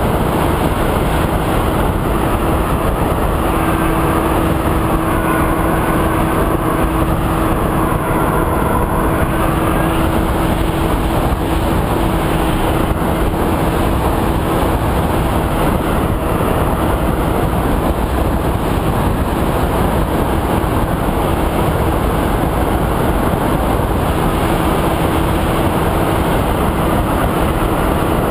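Wind rushing over an onboard action camera on a Multiplex Easy Star RC foam plane in flight, with the steady hum of its electric pusher motor and propeller underneath.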